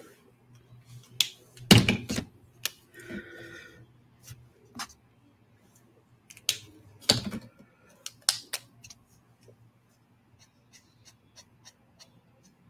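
Art markers being handled: sharp plastic clicks and a few louder knocks, the loudest about two seconds in and again about seven seconds in, then faint short strokes of a marker tip on paper near the end.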